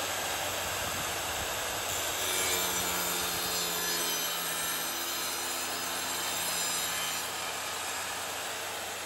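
Overhead wet tile saw running steadily while its blade is pushed through an arabesque tile. From about two and a half to seven seconds in, a lower tone joins the motor and the sound gets a little louder as the blade cuts the tile.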